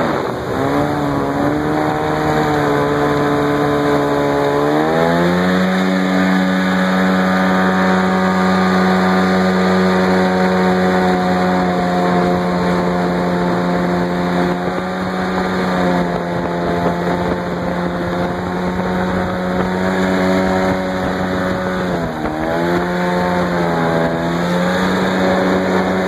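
Small outboard motor driving a jon boat, running steadily. Its pitch rises about five seconds in as it speeds up, then dips briefly and comes back up near the end.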